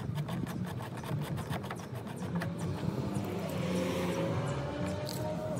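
A car passing by, swelling to its loudest a little past the middle and then fading. Under it, fast light clicking of a screwdriver turning out the mirror-mount screws.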